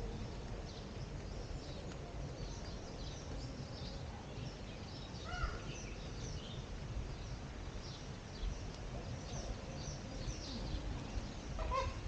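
Birds calling in the surrounding trees and shrubs: many short, high chirps scattered through, with a louder, lower call about five seconds in, over a low rumble.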